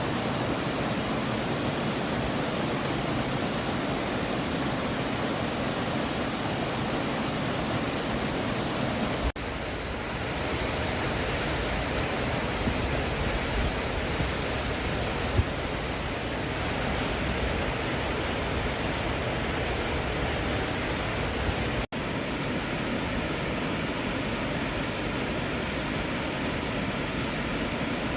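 Bash Bish Falls: water pouring down the waterfall and over rocks, a steady rushing noise. It breaks off for a split second twice, about a third of the way in and again about three quarters of the way through.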